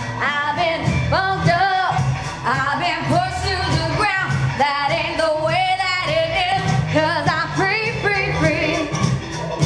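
A woman singing a pop song with a wavering vibrato over a backing track with a steady bass line.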